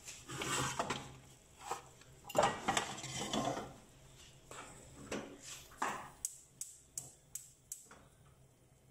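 A spatula scrapes and knocks against a stainless steel pan of chicken pieces in sauce. Irregular scraping and clatter come through the first few seconds, then a quick run of sharp taps, about three a second, near the end.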